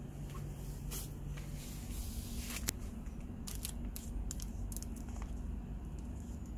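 Plastic packaging of hanging fishing lures crinkling in short bursts as a hand touches and moves them, over a steady low hum.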